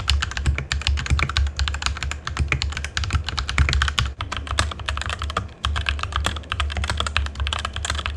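Fast typing on a mechanical keyboard with red linear switches: a dense, continuous run of key clacks, with a brief lull past the middle.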